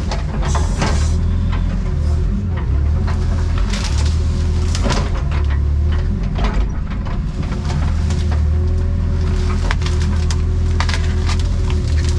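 Excavator's diesel engine running steadily with a low drone and a constant hum, with scattered knocks and clanks from the machine working.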